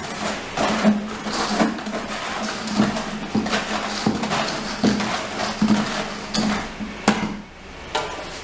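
Mortar being mixed in a tub: repeated knocks and scrapes of the tool against the container, roughly one every 0.7 seconds, over a steady low hum.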